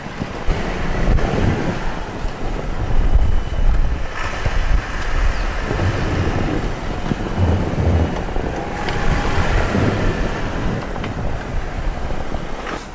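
Strong blizzard wind buffeting the microphone, a loud low rumble that swells and falls in gusts.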